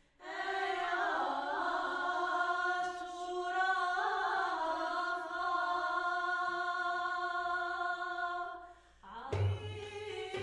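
Women singing a long, wavering unaccompanied vocal line of Jebli 'aita, the mountain folk song of northern Morocco. About nine seconds in, the voices stop and hand-struck frame drums come in with strong strokes.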